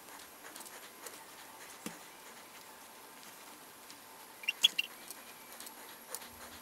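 Quiet, scattered clicks and taps of small 3D-printed plastic parts being handled and set down on a wooden tabletop, with a few sharper clicks about four and a half seconds in.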